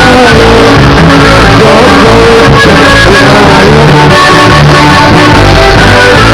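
Norteño music playing loud, with a steady bass line under a melody of held notes.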